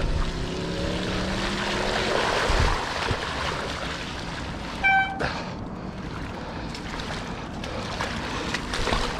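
Steady rushing of flowing floodwater. A low drone falls slowly in pitch over the first couple of seconds, and there is one short high note about five seconds in.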